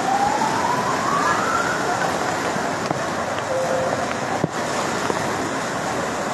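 Floodwater rushing and pouring over a wall, a steady hiss of moving water, with a thin rising tone in the first two seconds.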